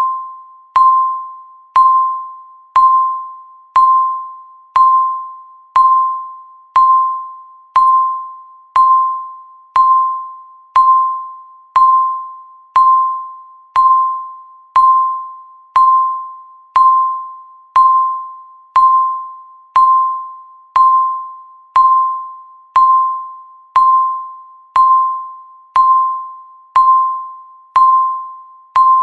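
Countdown timer beeping once every second: a single electronic chime-like tone struck evenly, each beep fading quickly before the next.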